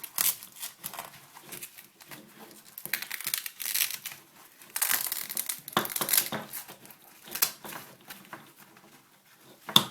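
Crinkling and rustling as gear is handled and pulled out of a pocket, in irregular bursts, with a sharp click near the end.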